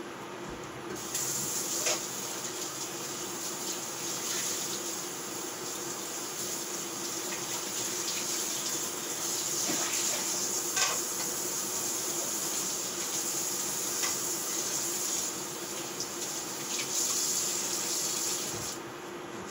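Kitchen tap running steadily, turned on about a second in and shut off near the end, with a few light knocks.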